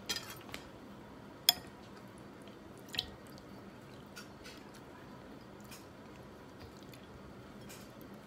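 Soft eating sounds of a person eating rice and ribs by hand: chewing and fingers working through food on a plate. A few sharp clicks come through, the loudest about one and a half seconds in.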